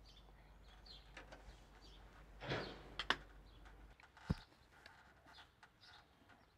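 Faint handling sounds as electrical cable is drawn through a putty-sealed hole in the siding: a brief rustle about two and a half seconds in, two sharp clicks right after, and a knock about a second later. Birds chirp faintly in the background.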